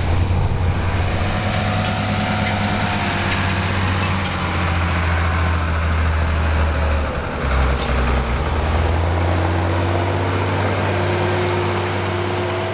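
Ford 7810 Generation III's six-cylinder diesel engine running steadily under heavy load as it pulls three-tonne trailed offset discs through hard, dry stubble.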